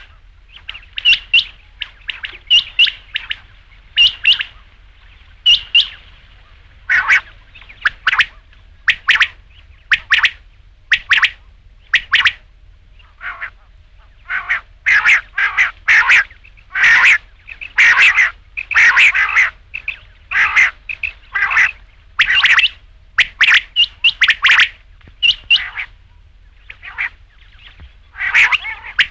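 Quail (batair) calling: short, sharp, high notes repeated over and over in quick groups of two or three, coming thickest through the middle.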